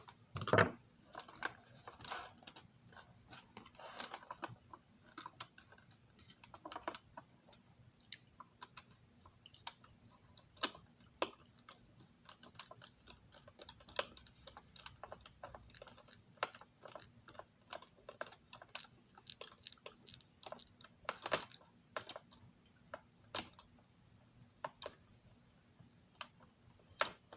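Small, irregular clicks and taps of a magnetic screwdriver and tiny screws against a model passenger car's body as the screws are set and driven in.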